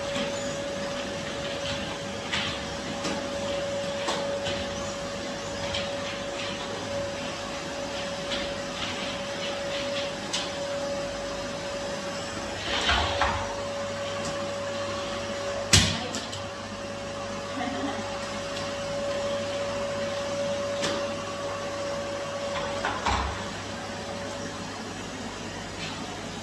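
Canister vacuum cleaner running with a steady whine over a rug and hard floor, with scattered knocks and clicks from the wand and floor head, one sharp click about two-thirds of the way through. The whine stops near the end.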